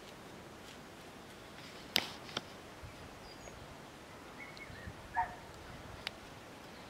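Faint background hiss broken by sharp clicks, two about two seconds in and one about six seconds in, with a brief high animal call about five seconds in.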